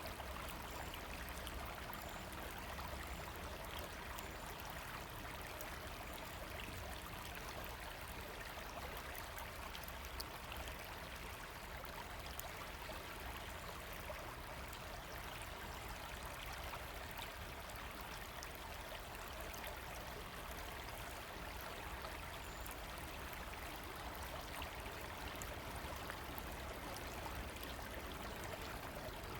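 River water running steadily: an even rush of flowing water with no pauses.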